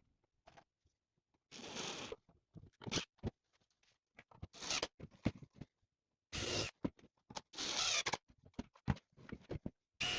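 A series of short, separate bursts of rasping and scraping from work on plywood (pre-drilling, sanding and screwing parts together), each a fraction of a second to about half a second long, broken by abrupt silences.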